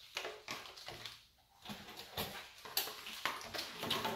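Small car parts and a wiring harness being handled and set down on a garage floor: a string of light, irregular knocks, clicks and rustles, busier after about two seconds.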